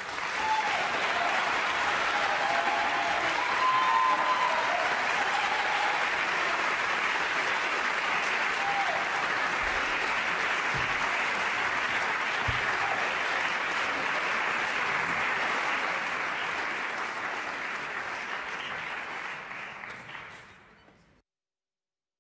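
Concert hall audience applauding at the end of an operatic aria, with a few voices calling out in the first seconds. The applause dies away over the last few seconds and cuts off abruptly.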